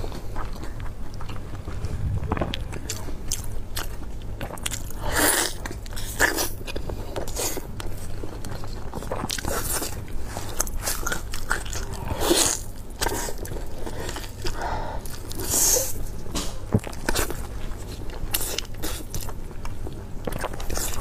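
A person biting and chewing glazed braised pork belly close to a clip-on microphone: irregular wet, sticky smacks and clicks of mouth and fatty meat, with louder bites every few seconds.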